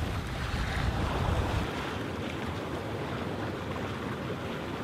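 Wind buffeting the microphone and sea water rushing along the side of a sailboat under sail. The heavy low wind rumble eases about one and a half seconds in, leaving a steadier rush of water and wind.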